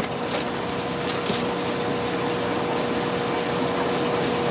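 Steady rush and hum of fish-room aquarium pumps and water circulation running, with a constant faint tone underneath.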